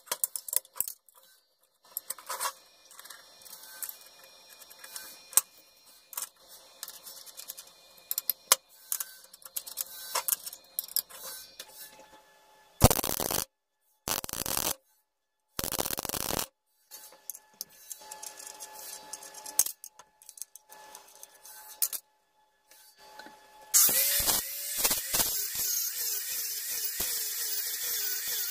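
Steel parts and bolts clinking and rubbing on a steel workbench while being set out. About halfway through, three short bursts of MIG welding crackle as nuts are tack-welded onto a square steel tube. Near the end a grinder spins up and grinds the steel, throwing sparks.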